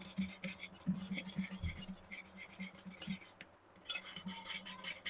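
Wire whisk beating yogurt with spices and boondi in a stainless steel bowl: rapid, even scraping and clicking strokes of the wires against the bowl, with a short break about three and a half seconds in. This is the spice mix being whisked into the curd for boondi raita.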